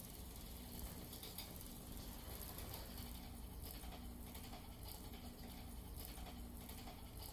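Faint whir of a battery-powered butterfly cat toy's small motor, starting and stopping every second or so as it swings the butterfly around, with scattered soft rustles and taps as the cat paws at it.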